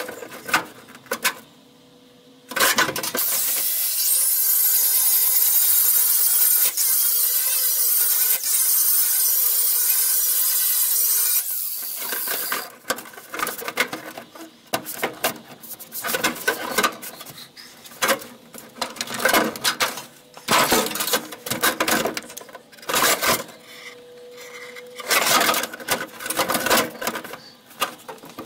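A sheet-steel floor patch panel scraping and clanking against the cab floor of a 1966 Ford F100 as it is pushed and shifted into place. A steady hiss starts suddenly about three seconds in and runs for roughly nine seconds before fading out.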